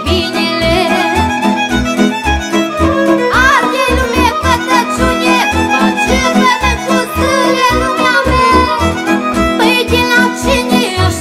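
Romanian folk music instrumental break: a fiddle plays an ornamented, sliding melody over a steady bass beat and held accompaniment chords.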